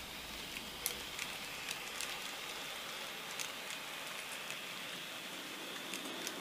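N gauge model train of coaches rolling along the track: a steady fine hiss of small wheels on rail, with irregular light clicks.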